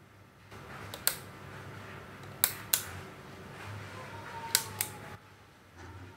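Three pairs of sharp clicks from kitchen handling at the cooktop, over a low steady hum that switches on about half a second in and cuts off abruptly near the end.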